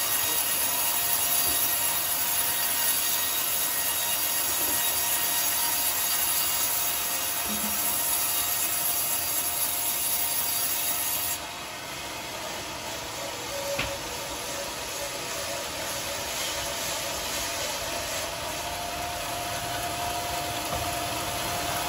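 Band sawmill blade running steadily through a coconut-wood log with a continuous rasping saw noise over the machine's drive. About eleven seconds in the sound turns a little quieter and duller.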